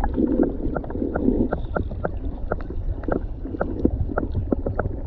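Wind buffeting the microphone as a steady low rumble, with a quick, irregular run of light clicks and taps, several a second.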